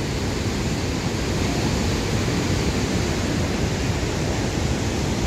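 Steady rush of water falling from the Cleveland Dam spillway into the Capilano River canyon, an even noise with no breaks.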